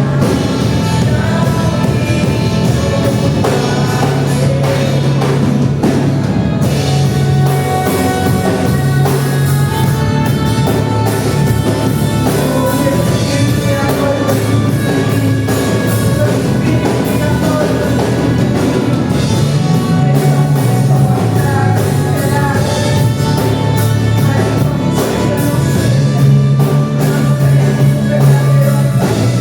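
Live worship band playing with singing, over drums, bass and guitar.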